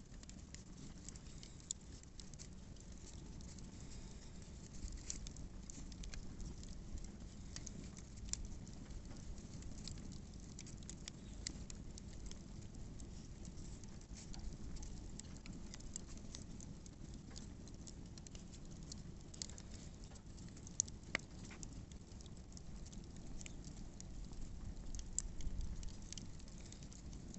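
Campfire crackling: scattered small snaps and pops over a steady low rumble, with a couple of sharper pops about three-quarters of the way through.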